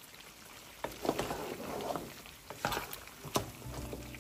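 Spatula stirring and scraping beef kala bhuna in a pot, with a few sharp knocks of the spatula against the pot. It starts about a second in.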